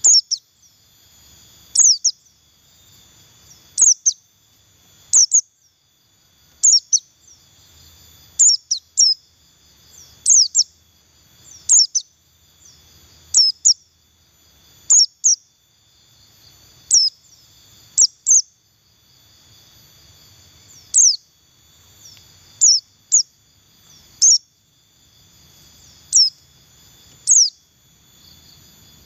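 White-eye (pleci buxtoni) giving loud, sharp chirps that sweep down in pitch, singly or in quick pairs, one every second or two. This is the 'ngalas' calling used as a lure to get other white-eyes to open up and sing.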